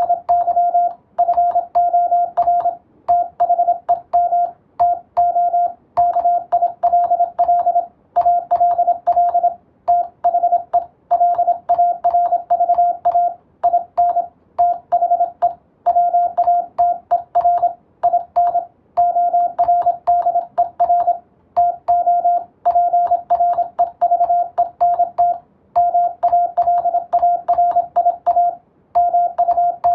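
Morse code sent on a telegraph key: a steady beep of about 700 Hz keyed on and off in fast dots and dashes, in groups separated by short pauses, with a faint click at each keying.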